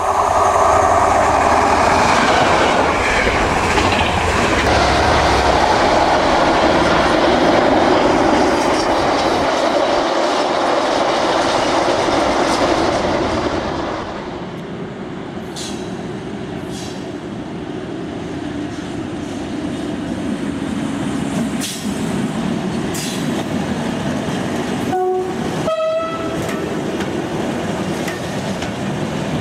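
British Rail Class 90 electric locomotives hauling container freight trains past, wheels and wagons running on the rails in a steady rush of train noise that drops a little about halfway through. About 25 seconds in, a two-tone train horn sounds two short notes, one lower and one higher.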